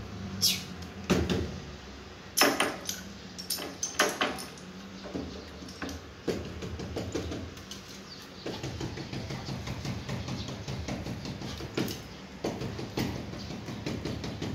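A small dog pawing and scratching at a wooden door: several sharp knocks against the door in the first few seconds, then a rapid run of claw scratching over the second half.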